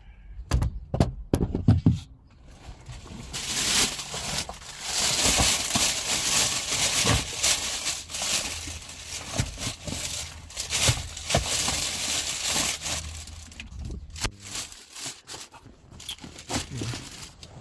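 A few knocks, then a long stretch of plastic packaging crinkling, rustling and tearing as a new ignition coil is handled and unwrapped.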